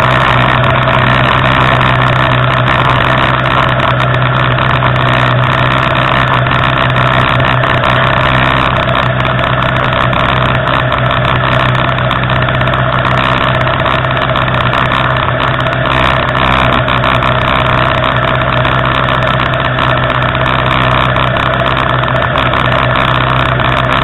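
Superbike engines idling steadily on the starting grid, picked up by a camera mounted on one of the bikes.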